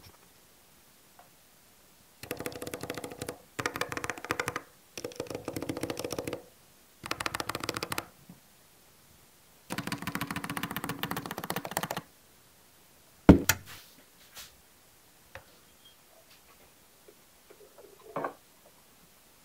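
Typing on a NuPhy Air75 low-profile mechanical keyboard with Gateron brown switches: five quick runs of rapid keystrokes with short pauses between them. About thirteen seconds in comes a single loud sharp knock, then a few faint taps.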